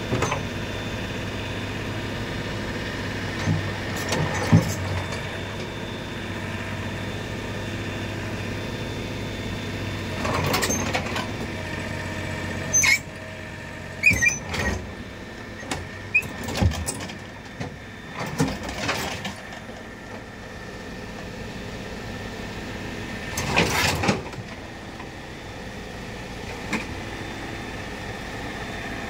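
Mini excavator's diesel engine running steadily under hydraulic load, with scattered metal clanks and knocks as the machine levers itself up onto a dump truck's bed. Most of the knocks come in the second half, the loudest about halfway through.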